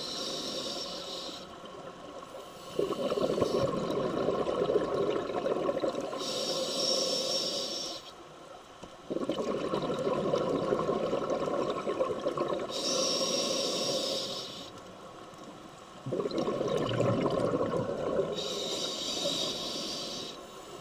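Scuba diver breathing through a regulator, heard through an underwater camera housing: a hiss on each inhale and a rush of exhaust bubbles on each exhale, about every six seconds.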